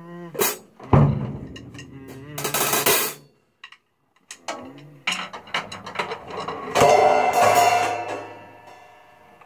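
Stagg acoustic drum kit played in short bursts of drum hits and cymbal crashes, with a brief stop about halfway. After the stop come more hits, and near the end a loud crash cymbal rings out and fades away.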